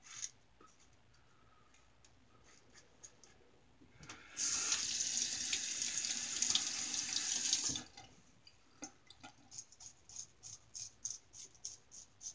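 A faucet runs for about three seconds to rinse the razor, then stops. A Star Super Six single-edge safety razor with a Gem blade then scrapes through lathered stubble in quick short strokes, about two or three a second.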